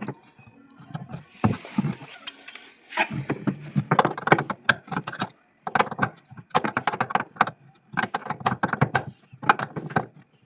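Rapid metallic clicking and clinking of a spanner working the nut onto the bolt of a washing machine's gearbox pulley, in several quick runs.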